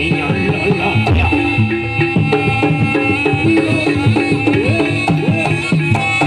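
Live Javanese traditional music for a barong dance: busy hand-drum patterns over steady held pitched tones.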